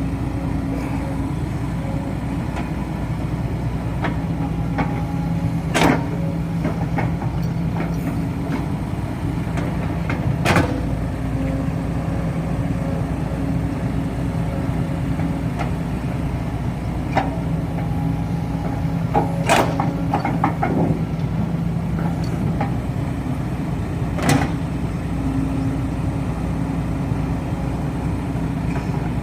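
Heavy diesel engines of an excavator and dump truck running steadily, with four sharp knocks spread through.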